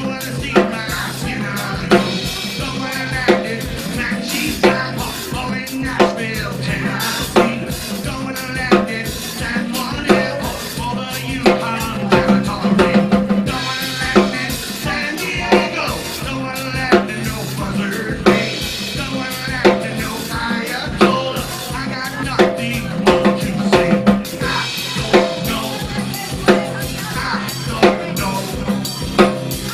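Live band, an acoustic guitar and a drum kit, playing a steady beat, with sharp drum accents recurring about every second and a half.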